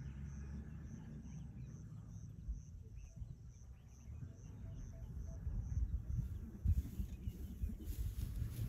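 An insect chirping at a steady, even pulse of about two to three high chirps a second over a low rumble. The chirping stops about six seconds in, and louder hissing noise takes over.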